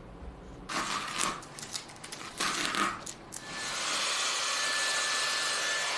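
Masking tape being peeled off a painted canvas in a few short rips, then, about three and a half seconds in, a handheld hot-air dryer switches on and runs steadily with a faint thin whine, blowing over the wet paint.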